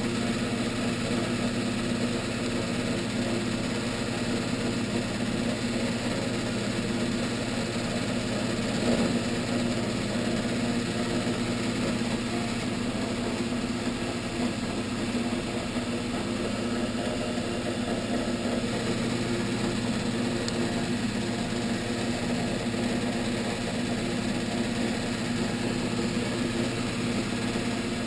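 Vertical milling machine running, its spindle motor giving a steady low hum with an even mechanical whir over it.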